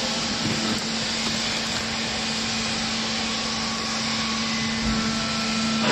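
Steady mechanical hum and whir with a constant low tone, typical of a hydraulic baler's electric motor and pump running idle.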